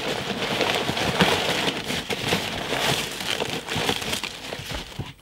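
Packaging rustling and crinkling as a small parcel is opened and unpacked by hand, a continuous rustle with many small crackles that dies away near the end.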